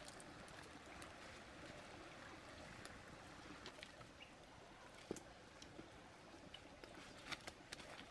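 Near silence: a faint, steady outdoor hiss with scattered light clicks and taps.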